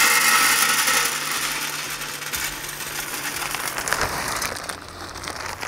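Bear Mountain wood pellets pouring from a bag into a pellet grill's hopper: a steady rushing rattle, loudest at the start and tapering off toward the end.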